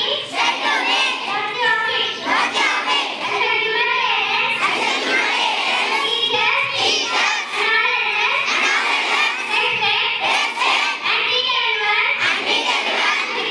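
Children's voices reciting a school pledge in unison, led by a girl at a public-address microphone, in short chanted phrases with brief pauses between them.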